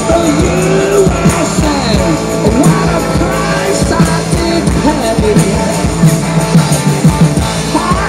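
A live rock band playing loudly, with electric guitars, drums and a male lead vocal singing through the PA.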